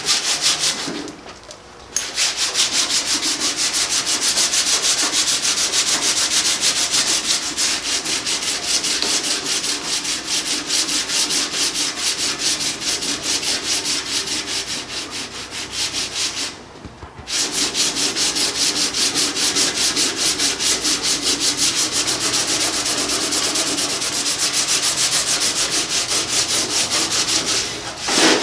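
Sandpaper on a wooden paint paddle used as a flat sanding block, rubbed by hand over a painted steel car fender in quick, steady back-and-forth strokes. It is scuffing down the old paint in preparation for painting. The strokes stop briefly twice, about a second in and again about 17 seconds in.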